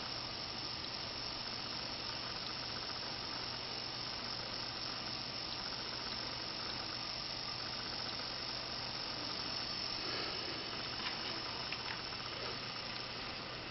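Small electric fan running with a steady high-pitched whine and hiss. A few light clicks come near the end.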